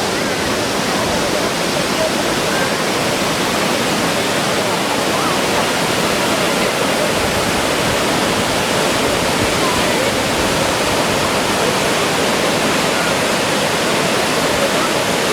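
Kravica waterfall's water pouring down, a loud, steady, unbroken rush.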